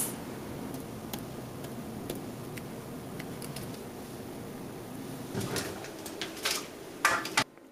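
Faint taps and scratches of a stylus on a pen-display screen over steady room noise. A few louder soft knocks come near the end.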